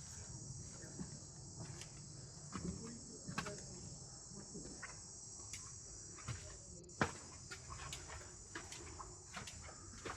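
Steady high-pitched drone of insects, with scattered light clicks and taps and one sharper click about seven seconds in.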